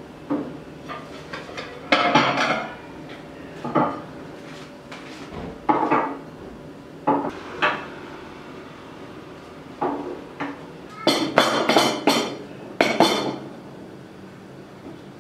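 Ceramic plates, glass tea cups and a bowl being set down one after another on a wooden table: a string of short clinks and knocks. The busiest run comes about two-thirds of the way in.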